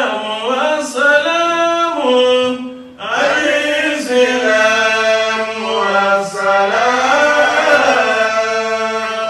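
A man chanting in a melodic recitation style, drawing out long held notes that slide up and down, with a short break about three seconds in.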